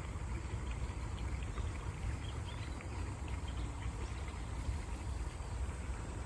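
Steady running water of a stream, with a low rush and many small, brief splashes on top.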